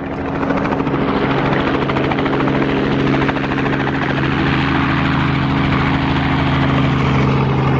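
Light helicopter lifting off, its engine and rotor running loud and steady with a fast rotor chop, swelling over the first second.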